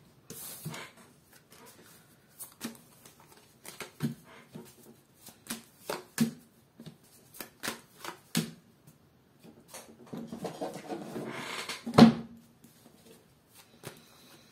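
A deck of tarot cards being shuffled and dealt onto a wooden tabletop: a series of short taps and slaps as cards are handled and laid down. A longer stretch of shuffling rustle comes about ten seconds in, ending in the loudest tap.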